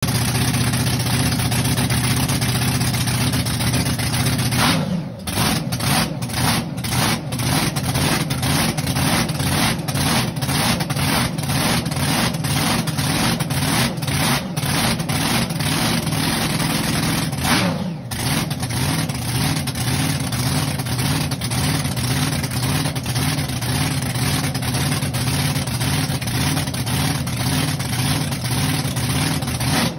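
Supercharged drag-boat engine with a blower and injector hat, idling in the pits. The first five seconds are steady; after a brief dip in level the idle settles into an uneven, rhythmic lope, about two beats a second, with another short dip near 18 seconds.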